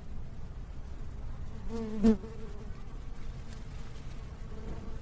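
A buzzing insect over a low, steady rush of water. The buzz swells briefly and loudly about two seconds in, as if passing close.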